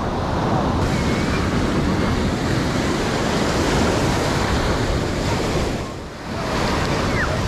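Ocean surf breaking and washing up the sand, with wind rumbling on the microphone. The wash dips briefly about six seconds in.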